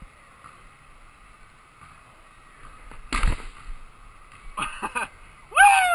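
A rubber dodgeball hits once with a loud thump about halfway through, echoing in the gym. A few smaller knocks follow, and near the end there is a short shout that falls sharply in pitch.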